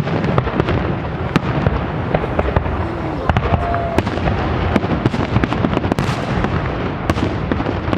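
Fireworks display: a continuous rumble of shell bursts with many sharp cracks following close on one another.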